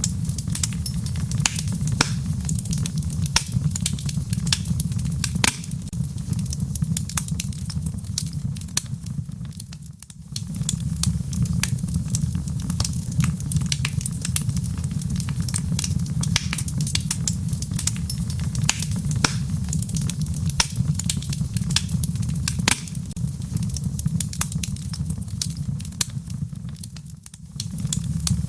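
Wood fire crackling in a fireplace: a steady low rumble of flames with frequent sharp pops and snaps. The sound dips briefly about ten seconds in and again near the end.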